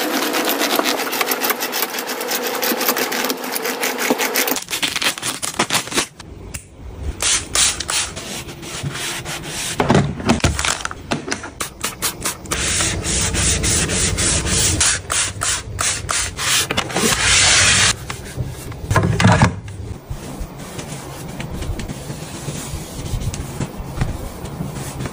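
Cleaning sounds in quick succession. First a tool scrubs rapidly back and forth over a fabric mattress, then dusters and cloths rub and wipe over hard surfaces. From about six seconds in, a low steady hum runs underneath.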